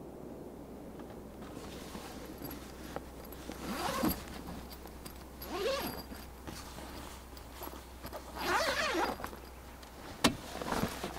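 Zipper on a rooftop tent's fabric door being drawn in several separate strokes, with fabric rustling, then a sharp knock near the end.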